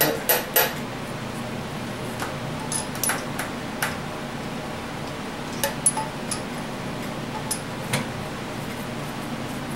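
Scattered light metallic clicks and clinks as the valves and parts of a Chevy 350 cylinder head are handled and worked in their guides, over a steady background hum.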